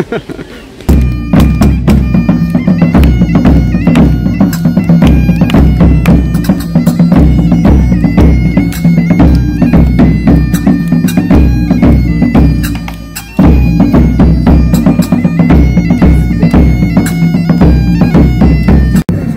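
Bagpipe music over a steady drone, driven by a regular drum beat. It starts abruptly about a second in, breaks off briefly after about thirteen seconds, and resumes.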